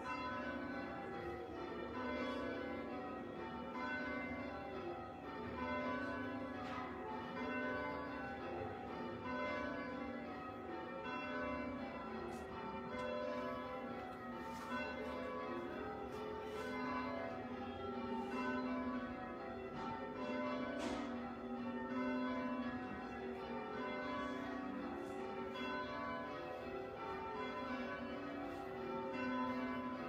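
Church bells in change ringing: a ring of tower bells struck one after another in a continuous, even rhythm, heard from inside the church below the tower.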